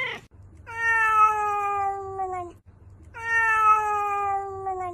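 A white-and-orange cat meowing twice: two long, drawn-out meows of nearly two seconds each, each held on one pitch that sinks slightly toward its end.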